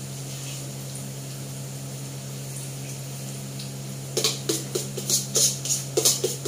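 Cookware clinking: a quick run of about nine metal clinks and scrapes from about four seconds in, a utensil striking and scraping the metal pot and wok. A steady low hum and the hiss of frying run underneath.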